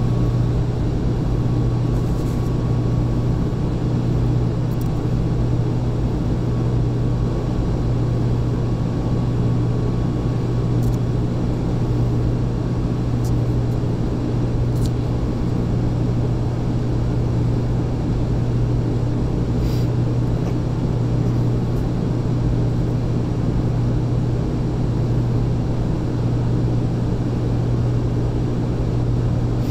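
Steady, loud low hum of running industrial machinery, unchanging throughout, with a few faint light clicks over it.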